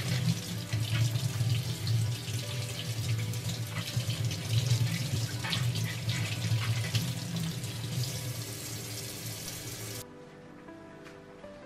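Kitchen tap running onto cucumbers and into a stainless steel sink as they are rubbed clean by hand. About ten seconds in the water sound cuts off suddenly, leaving only soft background music.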